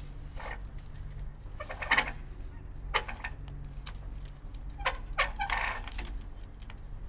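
Flagpole halyard and pulley squeaking and clinking in a few short, irregular bursts as a set of Christmas light strands is hoisted up the pole, strongest about two seconds in, at three seconds and around five to six seconds.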